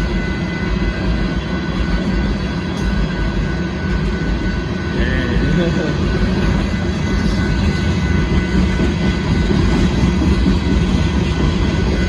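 Union Pacific rock train's freight cars rolling past, a steady loud rumble of steel wheels on rail that grows a little louder about five seconds in.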